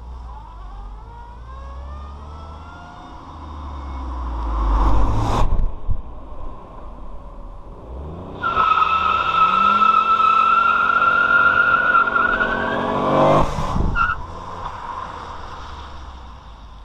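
Ford Fiesta 1.0 three-cylinder accelerating hard past the road, twice. Its engine note climbs to a loud pass about five seconds in. About halfway through, a high steady whine comes in suddenly over the rising engine, and both peak as the car passes again about thirteen seconds in, then fade.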